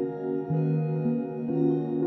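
Calm ambient instrumental music of sustained chords, the notes shifting about every half second.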